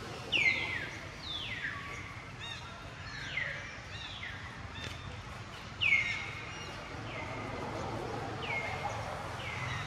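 Baby macaque giving repeated high-pitched calls, each sliding down in pitch and then held briefly, about one a second. The loudest come near the start and about six seconds in.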